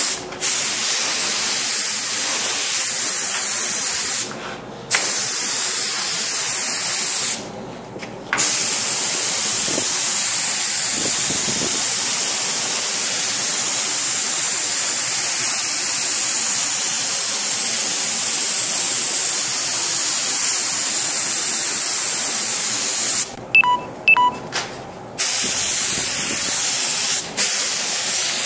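Iwata gravity-feed spray gun hissing steadily as compressed air atomises primer, the trigger let go briefly a few times: two short gaps early on, a run of short stop-start bursts near the end, then one more quick break.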